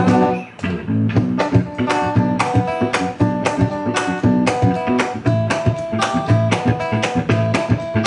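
Instrumental break of a band's song, led by a strummed acoustic guitar in an even rhythm with held melody notes over it. The music drops out sharply for a moment about half a second in, then carries on.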